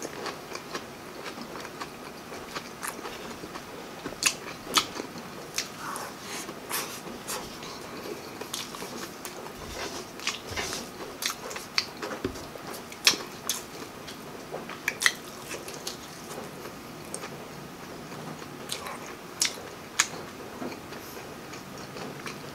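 A person chewing crispy breaded fried fish fillet: irregular crunches and mouth clicks, a few of them louder.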